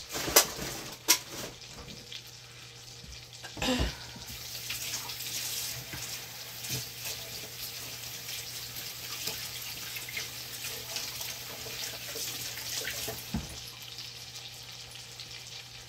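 Pork roast searing in butter and olive oil in an enamelled Dutch oven, sizzling and crackling steadily, with a few sharp knocks in the first four seconds.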